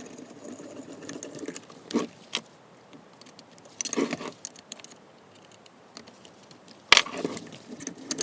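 Metal parts of a small LES bench vise being worked by hand: scraping and rattling as the screw and jaw are moved, with several sharp metal clicks and knocks, the loudest about seven seconds in.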